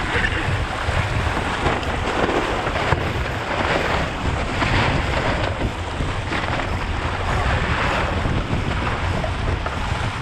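Wind buffeting the microphone over the rush and splash of water along the hull of an RS K6 keelboat sailing fast, the hiss of the spray swelling and easing every second or two.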